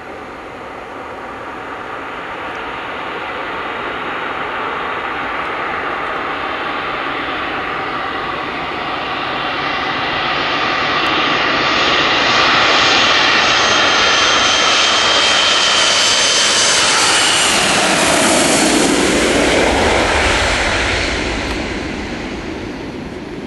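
Boeing 737 jet engines on landing approach: a whining jet sound that grows steadily louder as the plane comes in, stays loudest for several seconds, then slides down in pitch as it passes and fades, with a low rumble near the end.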